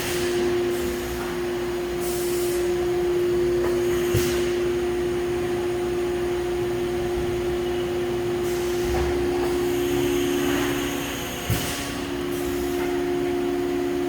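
Haas UMC-750SS machining center's 40-HP direct-drive spindle running steadily at about 15,000 RPM, its maximum speed, a steady whine. Short bursts of hiss come and go, a second lower tone joins about nine seconds in, and there is a brief knock about eleven and a half seconds in.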